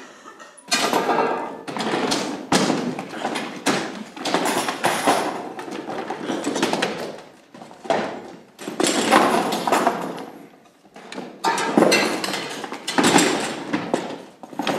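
Many wooden and metal chairs being lifted, dragged and knocked against each other on a stage floor: a dense clatter of scrapes and bangs that swells and eases in waves, with footsteps among them.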